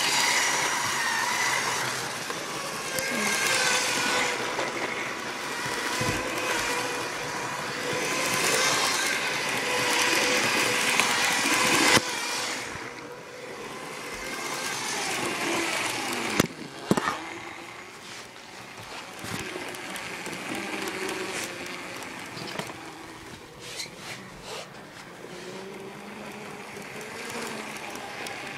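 Battery-powered Lego train's electric motor whining steadily, with wheels rattling on plastic track at top speed. About twelve seconds in the sound drops sharply, followed by a couple of clicks and quieter rattling.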